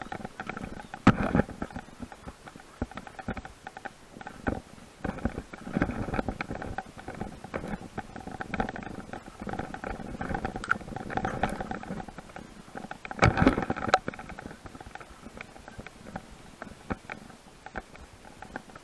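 Bicycle rattling and knocking as it rides over a bumpy dirt trail, with irregular clicks throughout and two heavier jolts, about a second in and about thirteen seconds in.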